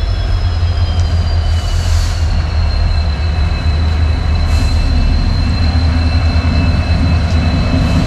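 Train passing close by: a steady heavy rumble with a high, thin wheel squeal that slides slightly down in pitch, and two short hisses about two and four and a half seconds in.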